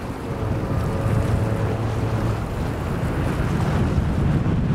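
Wind buffeting the microphone in a steady low rumble, with bay waves washing against shoreline rocks.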